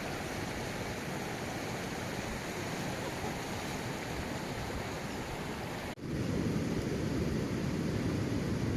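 Steady rushing of a mountain river. About six seconds in the sound cuts abruptly, and after that the rush is louder and deeper.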